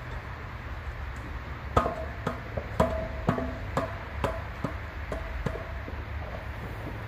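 A run of about nine sharp metallic knocks, roughly two a second, each ringing briefly, starting about two seconds in: a metal milk churn being handled as it is readied for carbide shooting.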